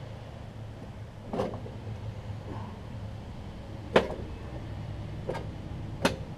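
Four short, sharp knocks from hands working on the underside of a push mower tipped on its side, the loudest about four seconds in, over a steady low hum.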